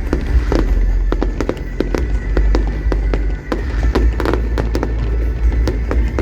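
Fireworks bursting in quick, irregular succession, several bangs a second, with music playing alongside.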